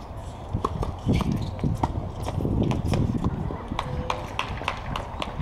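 Tennis ball being struck by rackets and bouncing on a hard court: a series of sharp, irregularly spaced pops.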